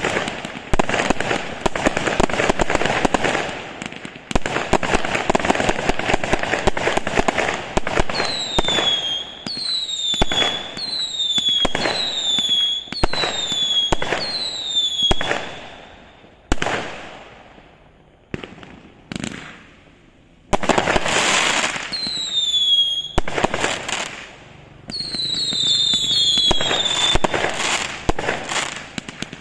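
Consumer firework cake firing: a dense run of crackling bursts, then shots about once a second, each with a short falling whistle. After those come a few separate sharp reports, more crackling, and several overlapping whistles near the end.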